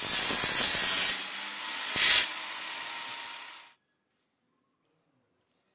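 Homemade table saw running with its circular blade cutting a wooden board. There is a longer loud stretch of cutting over the first second and a short loud one about two seconds in. The sound stops abruptly just before four seconds in.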